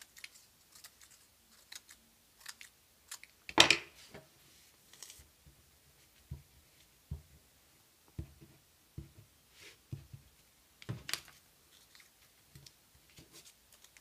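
Scissors snipping construction paper in a few short cuts, then a louder knock about three and a half seconds in. Then soft taps as a glue stick is dabbed and paper squares are pressed down onto the paper, with another knock near the end.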